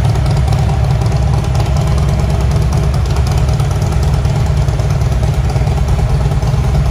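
2011 Harley-Davidson CVO Electra Glide Ultra Classic's Twin Cam 110 V-twin idling steadily, with no revving.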